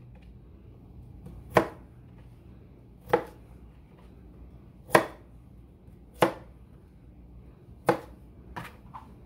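Chef's knife chopping broccoli stalks on a thin plastic cutting board over a tile counter: sharp single chops a second or two apart, about six in all, the last ones lighter.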